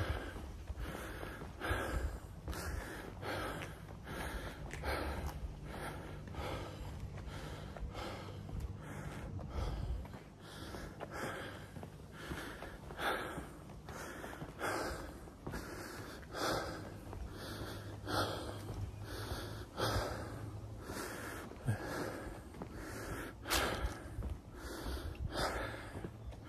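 A person breathing heavily and rhythmically close to the microphone while walking, with roughly one breath stroke a second.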